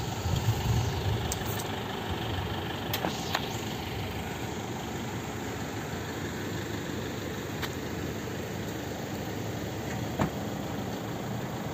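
A steady engine drone, with a few short faint clicks.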